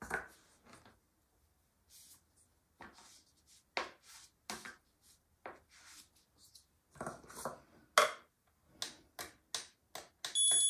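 Short scattered clicks, taps and scrapes of a paint stir stick and plastic cups being handled on a tabletop. Near the end a digital kitchen scale beeps once as its button is pressed.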